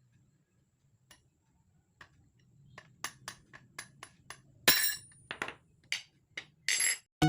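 Irregular sharp metallic taps and clinks, as of tools striking metal parts while a drill is taken apart. They come sparse at first, then thicker, a dozen or so, with two louder knocks that ring briefly. Music starts at the very end.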